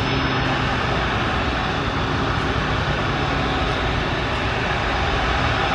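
Airbus A330 airliner's jet engines running at high power: a loud, steady rush of jet noise with a low hum beneath it.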